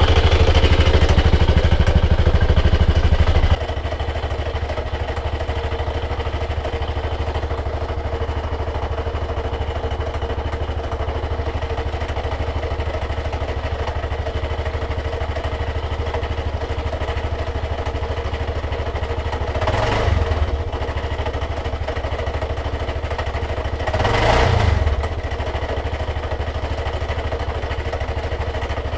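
Aprilia Pegaso Strada 660's single-cylinder engine idling steadily through its stock exhaust, heard close by at first and from a few metres away after a few seconds. It is blipped twice: briefly about twenty seconds in, and for about a second some four seconds later.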